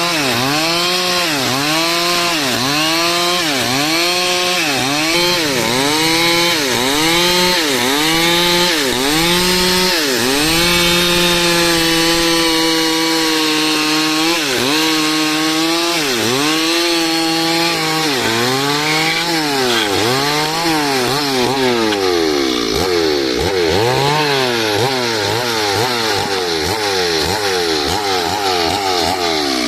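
Stihl two-stroke chainsaw cutting dry wood to square it into a beam. The engine pitch sags under load and recovers about once a second as the bar works through the wood, holds steady for a few seconds midway, then wavers faster near the end.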